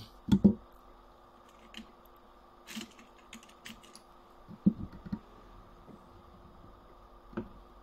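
Scattered light clicks and taps of small clock parts and tools being handled on a workbench during alarm-clock reassembly, a few sharper knocks among them, over a faint steady hum.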